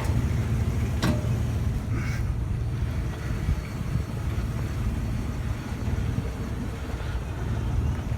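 Steady low rumble of a vehicle, with a sharp click about a second in.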